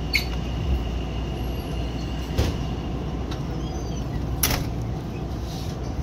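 Passenger train coach running slowly, heard from on board: a steady low rumble with three sharp knocks spread through it, the last the loudest. A faint high whine fades out about halfway.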